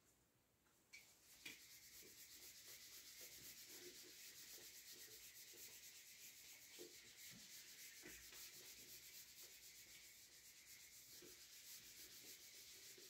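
Faint, steady rubbing of a whiteboard eraser wiped across a whiteboard, starting about a second in.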